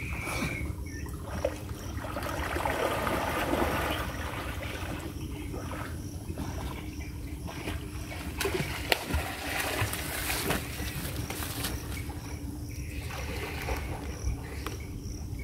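Pond water sloshing and splashing as people wade through it working a fishing net, with a low steady rumble underneath and a few sharp clicks.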